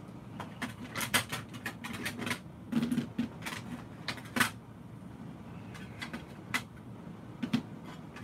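Shotgun shells clicking and clattering against each other and a metal tin as a hand picks through them: irregular bunches of clicks, busiest in the first half, with a few more near the end.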